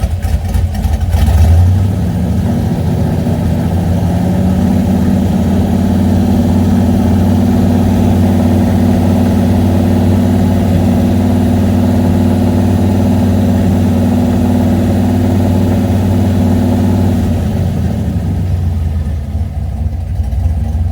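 Engine running on Holley Sniper throttle-body fuel injection. It is revved about a second and a half in, then held at a steady speed, and it drops back near the end. The engine is being run to show a misfire.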